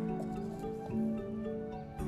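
Background music: held notes changing about every half second.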